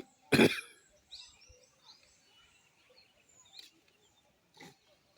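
One short, loud cry about half a second in, followed by faint, scattered bird chirps and a few sharp ticks.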